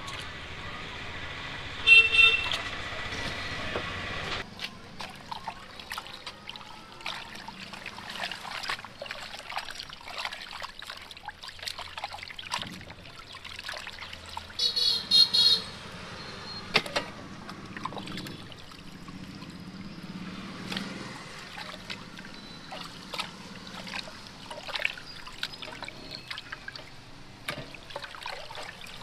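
Vehicle horns honking twice in street traffic: a short honk about two seconds in, the loudest sound, and a longer honk near the middle. Many short clicks and knocks come in between.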